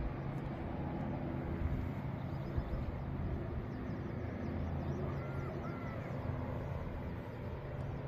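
Steady low rumble of distant road traffic and engines, with two short bird calls a little after five seconds in.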